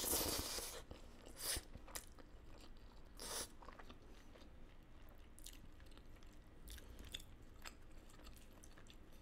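Close-miked eating sounds: a mouthful of food taken with the fingers, then faint chewing with wet mouth sounds, with short sharper smacks about a second and a half and three seconds in.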